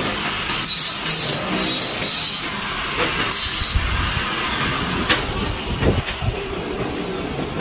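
The cut edge of a ceramic floor tile being scraped against the face of another tile to smooth the cut: four short scraping strokes in the first few seconds, then quieter scuffing.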